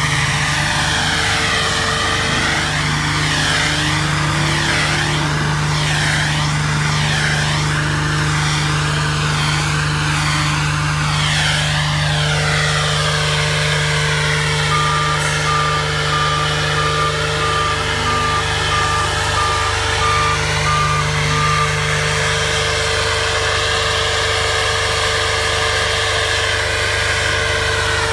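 Spray-injection road-patching truck running: its engine and blower give a steady hum, while air and aggregate rush out of the hand-held hose nozzle in a hiss that wavers in pitch.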